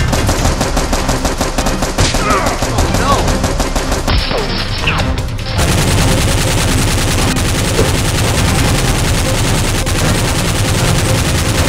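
Long bursts of rapid automatic gunfire, thickening about halfway through, added as sound effects to a Nerf blaster shootout.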